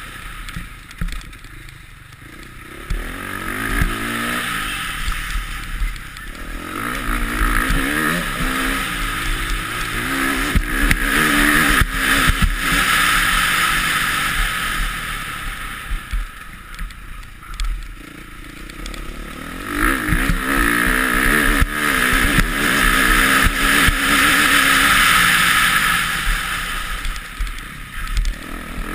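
Motocross bike engine heard close up from the bike's own onboard camera, revving hard and backing off in long swells as it accelerates along straights and slows into corners.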